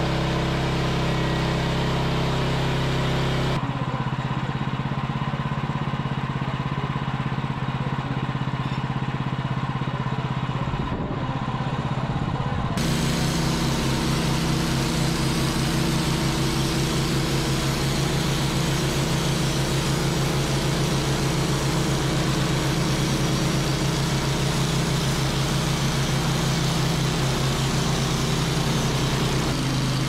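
Portable band sawmill engines running steadily, with the sound changing abruptly about four seconds in and again about thirteen seconds in.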